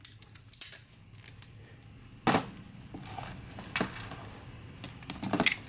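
Light clicks and knocks of objects handled on a tabletop as an aerosol can of carburetor solvent with a plastic hose is picked up: a few small clicks at first, a sharper knock a little over two seconds in, another near four seconds, and a quick run of clicks near the end.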